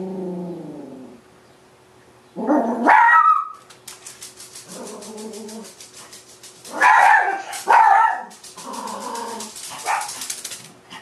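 Pet dogs barking at a delivery truck in the driveway: a drawn-out falling whine at the start, then a string of sharp barks, loudest a few seconds in and again around seven to eight seconds.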